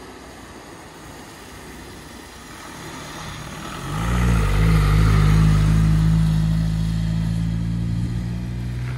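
Faint wind and road noise, then about four seconds in a motorhome's engine comes up loud as it drives past close by. Its pitch wavers briefly, then settles into a steady hum that slowly fades.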